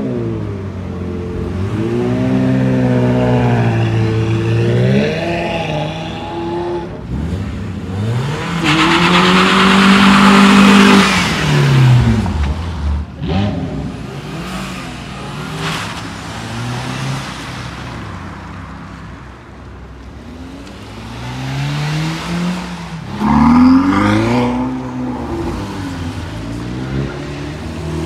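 Cars pulling away one after another, their engines revving up and dropping between gear changes. The loudest pass comes about nine to twelve seconds in, with a rush of noise over the engine note, and another car revs up near the end.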